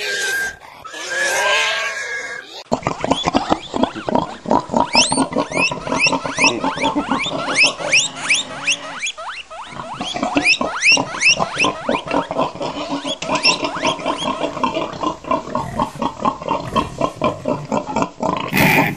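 Pigs grunting in rapid repeated pulses, with a run of short, high, rising squeals in the middle.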